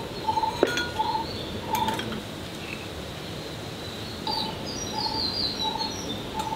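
Birds calling: one bird repeats a short, single-pitched note about every three-quarters of a second, falling silent for a couple of seconds in the middle, while another adds quick high chirps that step downward. Two light clinks sound, about half a second in and just before two seconds in.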